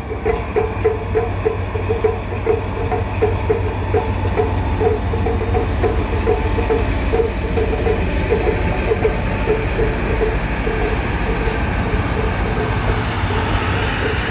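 DE10 diesel-hydraulic locomotive hauling a trolley train slowly past, its engine giving a steady low drone, with wheel-on-rail noise growing toward the end as the coaches roll by. A repeating ringing tone sounds a few times a second and fades out about ten seconds in.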